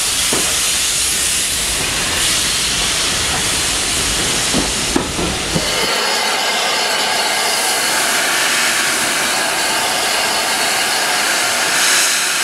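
Low rumble and hiss of a moving train heard from an open carriage window, with a couple of sharp knocks about five seconds in. About six seconds in the rumble stops and a steady steam hiss follows from Southern Railway Q class 0-6-0 No. 30541, standing with steam blowing out low at its front end.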